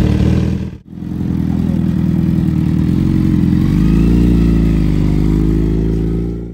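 Sport motorcycle engine running just after being started. It breaks off for an instant just before a second, then runs steadily, and its pitch rises a few seconds in as the bike pulls away.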